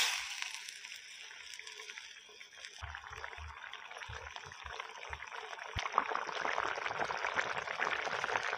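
Egg curry bubbling and spitting as it simmers in a pot, after a brief scrape of the stirring spoon at the start. The bubbling grows denser and louder from about three seconds in.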